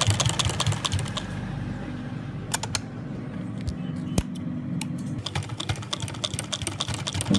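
Sewing machine stitching, a rapid run of needle clicks over a motor hum. The clicking thins out in the middle and picks up again near the end.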